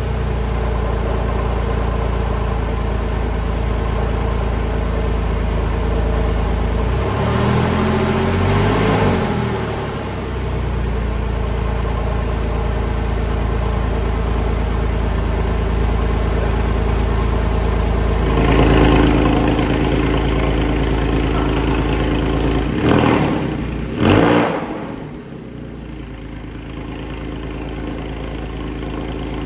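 Porsche 997 Carrera S flat-six idling through an aftermarket Soul Performance exhaust, revved and let fall back twice, then given two quick throttle blips near the end before settling back to a slightly quieter idle.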